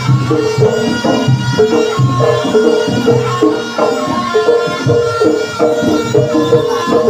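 Jaranan ensemble music: hand drums keep a quick rhythm under short, repeated pitched percussion notes, with a high tone held above them.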